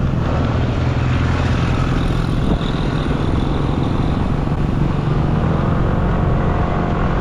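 Vehicle engine running steadily with road and wind noise while on the move.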